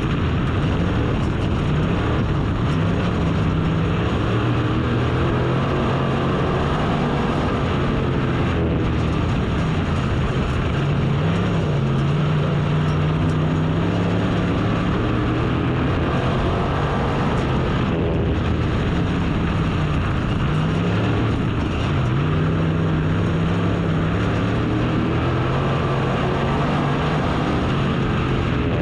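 Race car engine running hard around a short oval, its pitch dipping as it lifts for the turns and climbing again on the straights, about every ten seconds.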